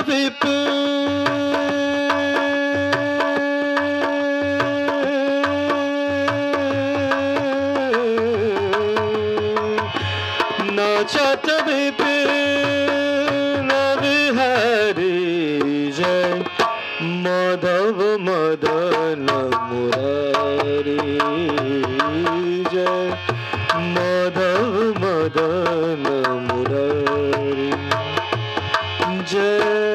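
Hindu devotional bhajan played on harmonium with a dholak drum keeping a steady beat. One long note is held for about eight seconds, then a sung melody follows with gliding, wavering notes.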